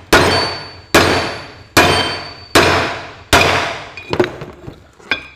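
Hammer driving new wheel studs home into a Massey Ferguson 65 tractor's front wheel hub: five heavy, ringing metal blows a little under a second apart, then a few lighter taps near the end.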